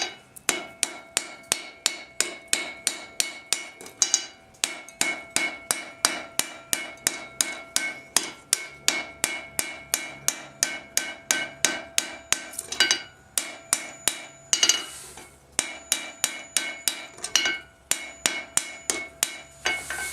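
Hand hammer striking hot steel in a steady rhythm of about three blows a second, each blow ringing, as the hot rivet joining the two halves of a pair of forged tongs is peened over. The hammering breaks off briefly a few times, around four, thirteen and fifteen seconds in.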